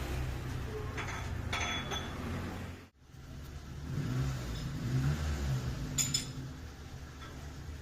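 Metal lathe running with a steady low hum, with a few sharp metallic clinks that ring briefly, about a second in and again near six seconds. The sound cuts out for an instant near three seconds.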